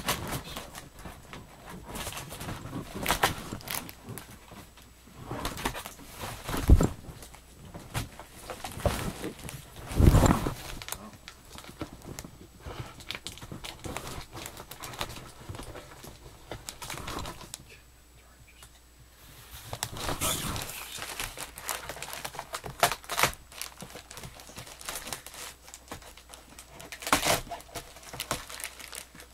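A cardboard box being cut open and handled: scissors snipping and scraping through packing tape, tape peeling, and cardboard flaps rustling and scraping. There are a few dull thumps as the box is shifted, the loudest about ten seconds in.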